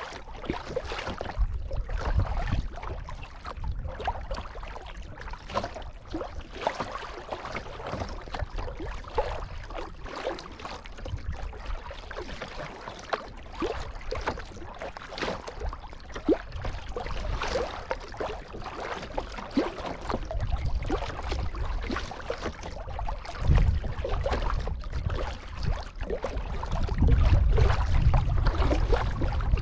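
Kayak paddling on open water: paddle blades dipping and splashing, with water sloshing against the hull. In the last few seconds a low rumble of wind on the microphone grows louder.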